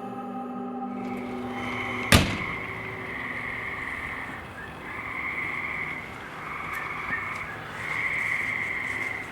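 Outdoor night chorus of calling animals, swelling in pulses of a second or so with short gaps between. A single sharp bang about two seconds in is the loudest sound.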